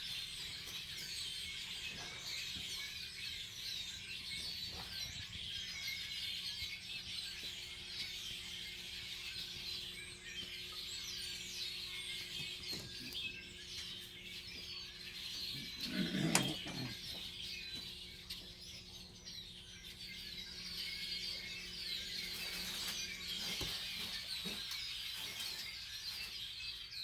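A large flock of birds gathered in trees, chattering and chirping together in a dense, continuous chorus of many overlapping short calls, with one louder, lower call about sixteen seconds in.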